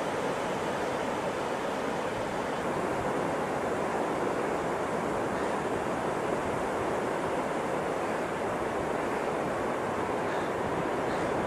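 Heavy sea surf breaking on a beach: a steady, continuous rush of waves.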